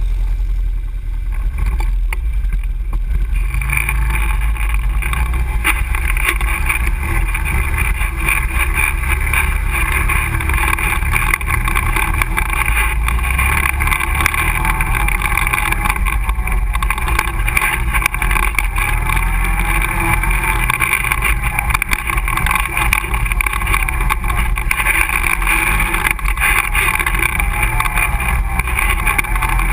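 An ATV engine running steadily as the quad rides along a dirt trail, a loud low rumble mixed with wind and rushing noise on the vehicle-mounted camera's microphone. The rushing grows stronger about four seconds in.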